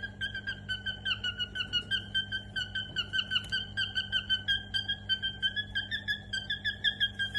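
Cockatiel calling in a rapid, even run of short, high chirps, about five a second, all on much the same pitch.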